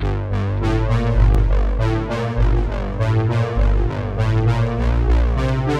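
Background electronic music: synthesizer and keyboard chords over a deep, changing bass line with a steady beat.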